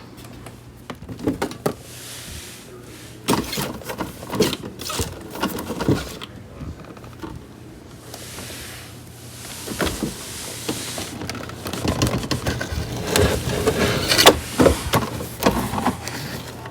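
Handling noises: irregular knocks, clicks and rustling of objects and packaging being moved about, getting busier in the last few seconds.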